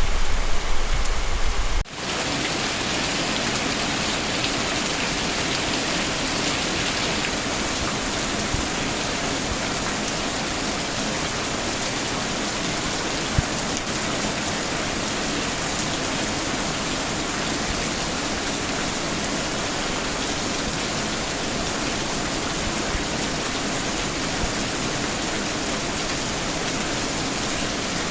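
Steady rain falling, an even hiss of drops on surfaces. For the first two seconds a louder low rumble lies under it and cuts off abruptly.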